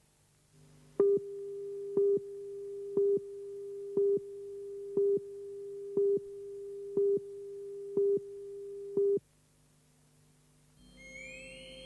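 Film countdown leader tone: a steady mid-pitched tone with a sharp pip every second, nine times, which cuts off suddenly. Near the end, electronic music begins with a rising glide.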